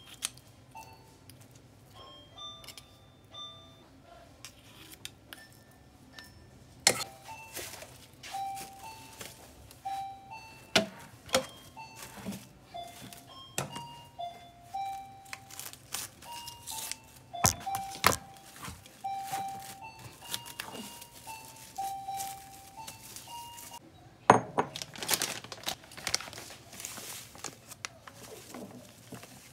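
Soft background music, a light melody of short high notes, over kitchen handling sounds: a spoon scraping dough in a bowl, then plastic cling film pulled from its roll, crinkled and torn with many sharp crackles and clicks through the middle, and near the end a hiss of crushed graham crumbs poured from a bag into a glass bowl.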